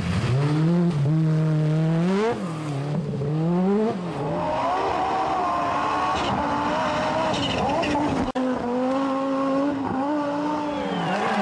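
Group B rally car engine running hard, its pitch climbing and dropping again and again with throttle and gear changes. Near the middle the sound breaks off sharply for an instant.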